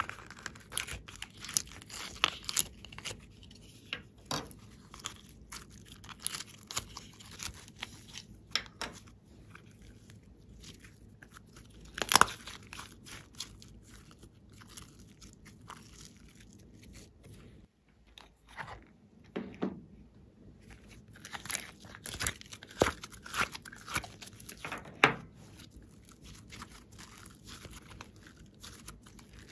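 Hands squishing, kneading and stretching glossy slime and clay: an irregular run of sticky clicks and crackles, with one sharp pop about twelve seconds in as the loudest.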